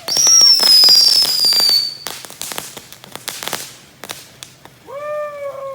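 Consumer fireworks going off: a loud, shrill whistle for about two seconds, sliding slightly down in pitch, over rapid crackling. The crackling goes on after the whistle stops and dies away about four seconds in.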